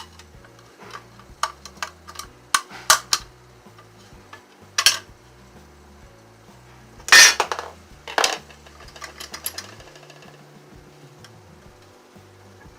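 Parts of an electric sewing machine foot pedal being handled as it is taken apart: scattered clicks and knocks, with a louder clatter about seven seconds in and another knock a second later.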